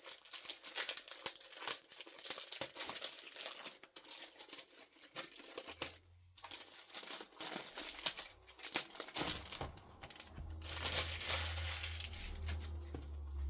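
Packaging crinkling and rustling with many small crackles as a magazine's free gift is handled and unwrapped, with short pauses; a low rumble joins in for the last few seconds.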